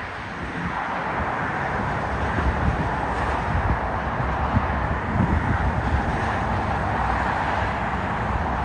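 Steady rumble of a distant electric commuter train approaching, blended with road traffic, growing a little louder about a second in, with low wind buffeting on the microphone.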